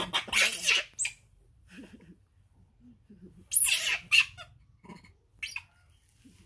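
Baby macaque giving shrill, screechy cries: one right at the start and a longer one about three and a half seconds in, with a few short, fainter squeaks between.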